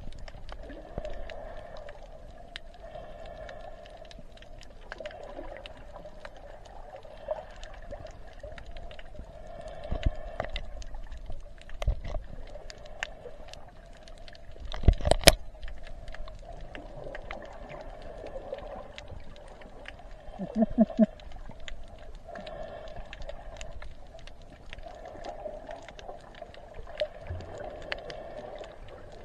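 Water sloshing and gurgling against the side of a boat in repeated swells, with a few knocks; the loudest comes about halfway through.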